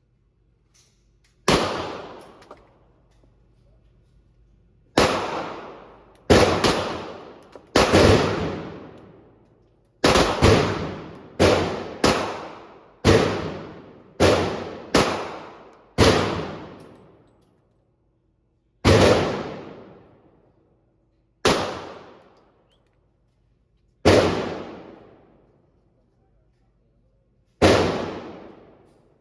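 Gunshots at a shooting range, fired one at a time at irregular intervals, about eighteen in all, each with a long echoing tail.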